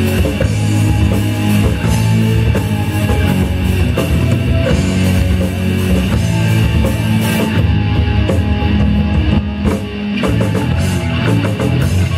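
Rock band playing live: drum kit, electric bass, electric guitar and keyboard through amplifiers, in a steady instrumental passage with no singing.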